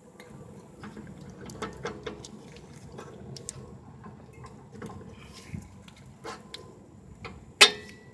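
Light metallic clicks and taps of brake parts and hand tools being handled while new rear brake pads are fitted, with one sharp metallic clank that rings briefly near the end.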